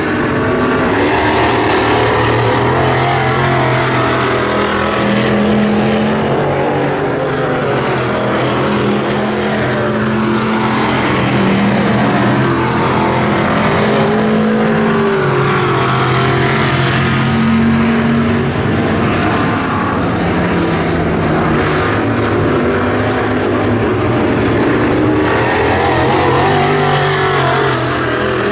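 WISSOTA Midwest Modified dirt-track race cars with V8 engines running laps. The engine notes rise and drop as the cars go through the turns and down the straights.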